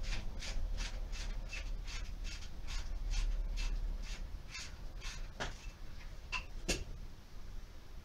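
Ratchet wrench clicking in short, even strokes, about three clicks a second, while the engine mount bolt is being loosened; the clicking thins out after about five seconds, with two louder single clicks near the end.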